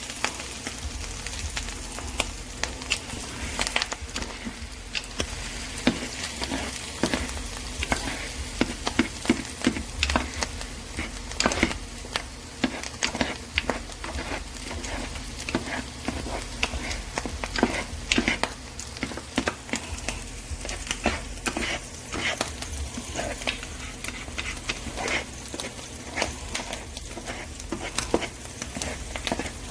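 Food frying in a pan: a steady sizzle with dense, irregular crackles and pops.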